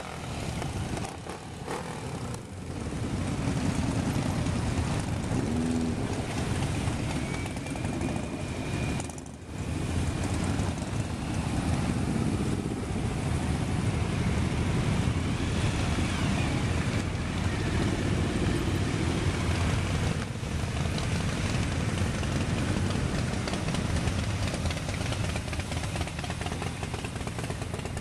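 A long procession of motorcycles riding past, a mix of cruisers, sport bikes and touring bikes, their engines making a continuous mixed rumble as bike after bike goes by. The sound dips briefly near the start and again about nine seconds in.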